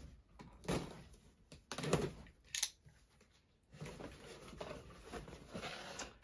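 Cardboard box being opened and its contents and packing paper handled: a few separate knocks and crackles, a short quiet gap, then softer rustling.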